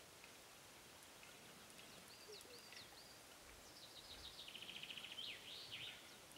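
Faint song of a small songbird: a few high chirps, then about four seconds in a quick run of notes rolling into a trill that ends in a flourish.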